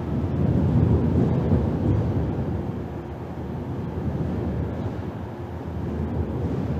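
A deep, steady rumble, most of its weight in the low end, swelling gently a couple of times.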